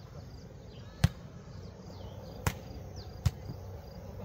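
A beach volleyball being struck by hand in play: three sharp hits, about a second in, at two and a half seconds and a little after three seconds, with faint high chirps in the background.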